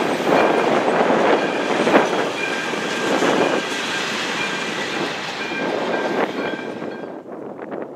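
Empty freight hopper wagons rolling past close by, with wheel clatter and a thin steady squeal. The noise drops away about seven seconds in as the last wagon goes by.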